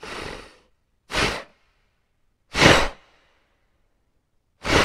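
An animal blowing air hard through its nostrils: a breath fading out at the start, then three short, sharp snorts with silence between them. The middle snort is the loudest.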